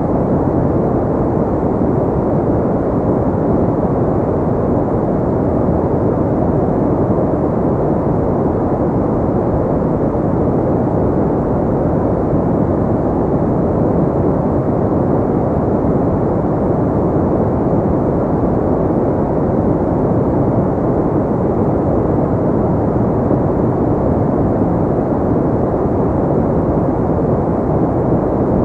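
Synthetic pink noise played continuously for relaxation: a steady, muffled rush weighted toward the low and middle range, with no changes.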